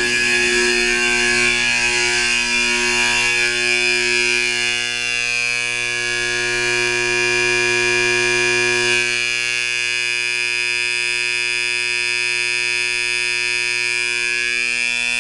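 Original 1966 Cincinnati 701-202 fire alarm sounding continuously during a drill: a steady, harsh buzzing tone with many overtones. About nine seconds in it drops a little in level and its tone shifts slightly.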